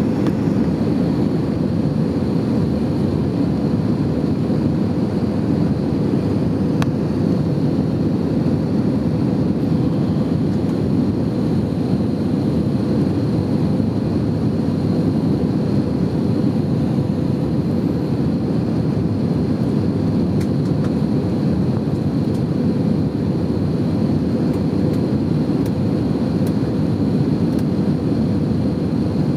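Airbus A320 cabin noise on approach: the steady roar of the jet engines and rushing air heard from a window seat. A faint, thin high whine runs under it.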